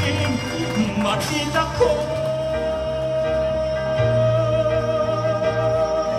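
A man singing a Tagalog ballad over an instrumental accompaniment, holding one long note from about two seconds in.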